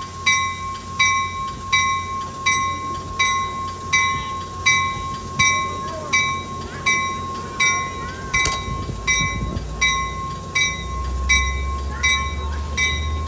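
Brass bell on an Amtrak California bi-level cab car ringing steadily as the train moves, about one strike every 0.7 seconds, over a steady high tone. A low rumble from the rolling train grows about ten seconds in.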